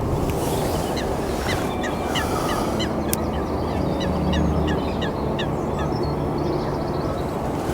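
A bird calling in a quick run of short, falling notes, about four a second for some four seconds, over a steady low background rumble.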